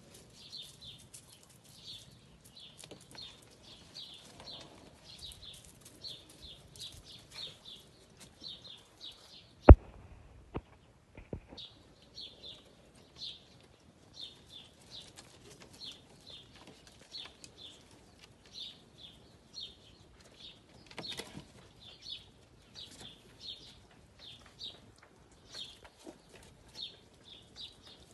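A small bird calling over and over in short high chirps, about one or two a second. There is a single sharp knock about ten seconds in, followed by a few fainter clicks.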